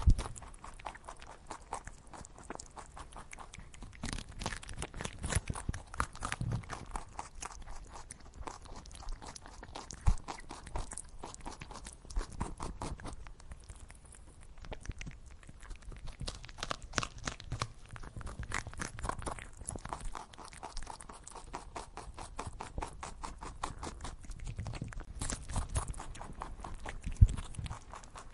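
Guinea pigs chewing grass: a steady run of quick, crackly crunches, with a few sharper knocks, one about ten seconds in and one near the end.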